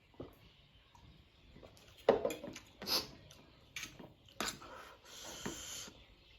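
Close-up mouth sounds of someone eating spicy noodles: scattered wet smacks and clicks of chewing, then a short hissing slurp lasting under a second near the end.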